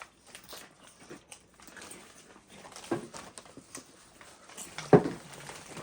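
Doritos being chewed and crunched, heard as scattered small crunches and mouth clicks, with a sharper, louder click about five seconds in.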